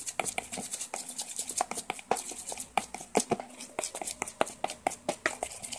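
Metal spoon stirring a wet, foamy glue-and-soap slime mix in a plastic bowl: a quick, irregular run of small clicks and squishy taps, several a second.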